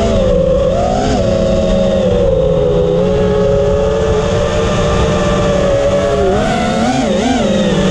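5-inch FPV quad's EMAX 2306 brushless motors and three-blade props whining over rushing wind noise. The pitch holds fairly steady, then swoops up and down several times near the end as the throttle is worked.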